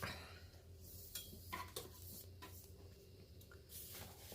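Faint light clicks and small metallic rattles of a necklace chain being handled, a few scattered over low room tone.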